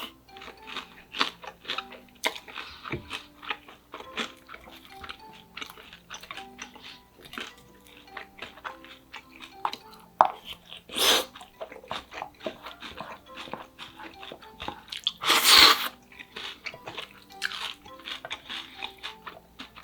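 Close-miked eating: rapid chewing and crunching clicks of crispy fried pork cutlet and buldak noodles, with two louder, longer mouth noises about eleven and fifteen seconds in, over soft background music.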